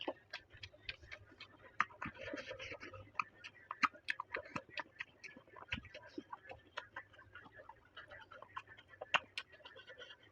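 Close-miked chewing of food: irregular wet mouth clicks and smacks, several a second.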